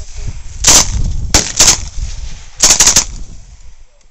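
Thompson submachine gun with a drum magazine firing in short bursts: a single shot, then two shots, then a quick string of three or four, with a low rumble lingering between them.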